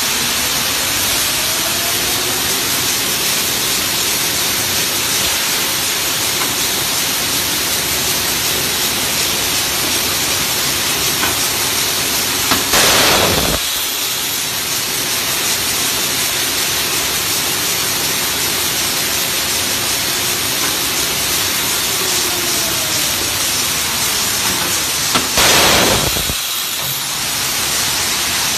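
Adhesive tape slitting and rewinding machine running with a steady hissing noise. About halfway through, and again near the end, the noise swells into a louder rush of about a second, then drops back a little quieter.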